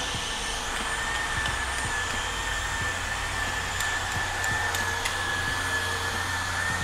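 Steady machine drone with a constant high whine over a hiss, with a few faint ticks in the middle.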